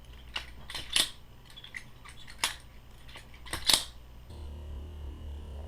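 Butterfly knife flipped open and closed, its metal handles and latch clacking sharply about half a dozen times. About four seconds in the clacking stops and a low steady hum takes over.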